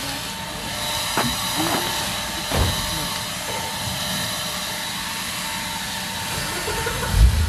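Small gas-powered yard machine running steadily, a constant whine with hiss over it. A low thump near the end.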